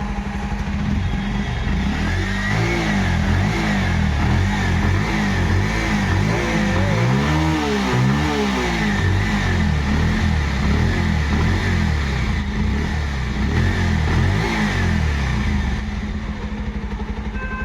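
Bajaj Pulsar 125 single-cylinder engine running with its newly fitted timing chain and tensioner. It idles steadily, and the throttle is blipped a few times so the revs rise and fall, most strongly about halfway through.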